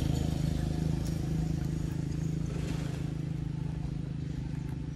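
A motor engine running with a steady low hum that slowly grows fainter.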